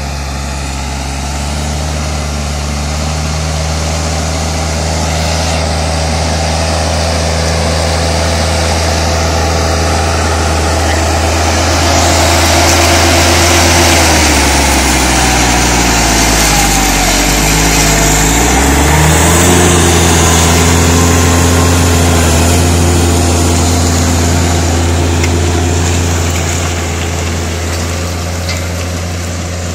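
Case IH Puma 155 tractor's six-cylinder diesel engine running under load while it pulls a reversible plough through the soil. The engine is loudest through the middle, where its note dips in pitch and then picks back up a few seconds later.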